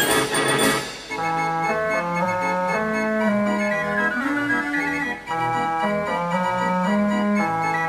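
An 89-key Marenghi fair organ playing: drum and cymbal strokes in the first second, a brief break, then a passage of held pipe notes over a steady bass.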